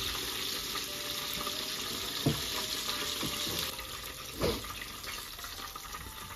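Batter-coated chicken deep-frying in a pan of hot oil: a steady sizzling hiss of bubbling oil. Two soft knocks come about two and four and a half seconds in as tongs lift pieces out.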